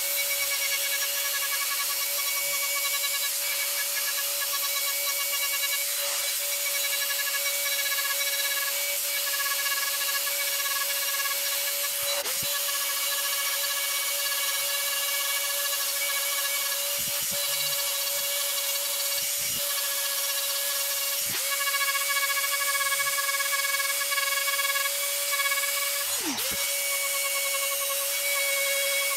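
Handheld rotary tool running at a steady high-pitched whine as its small bit carves dimples into the wood, with a hiss of the bit on the wood. Three times the motor's pitch briefly drops and recovers, the last and deepest near the end.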